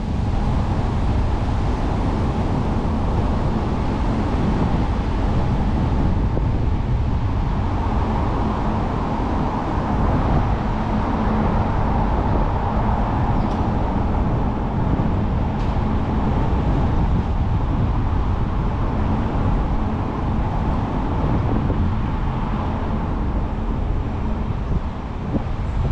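A car being driven: steady road noise and wind rush, heaviest in the low end.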